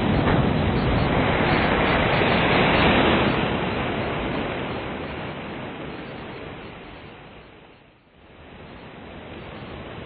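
Ocean surf: a wave breaking and washing up the shore, loudest two to three seconds in, then drawing back and fading almost out about eight seconds in before the next wave begins to build.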